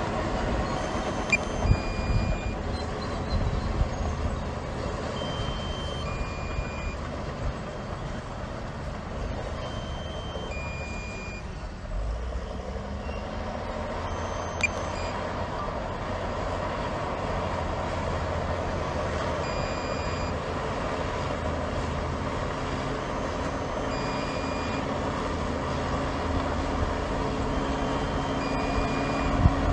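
Diesel engine of heavy earthmoving machinery running steadily, with short high beeps every few seconds.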